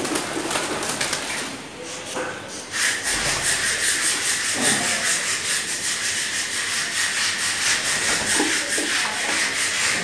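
Domestic pigeons cooing a few times. About three seconds in, a steady, rasping hiss with a fast flutter starts, the loudest sound from there on; its source is not shown.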